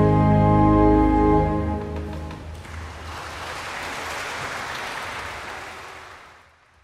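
Cello and organ holding a final sustained chord that stops about a second and a half in and dies away in the church's reverberation. Audience applause follows and fades out near the end.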